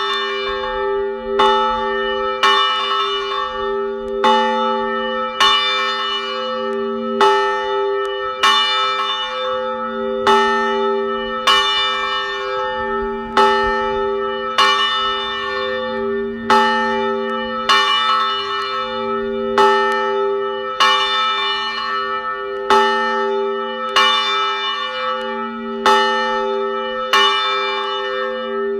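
A single church bell ringing, struck about once a second, each stroke's tone ringing on into the next.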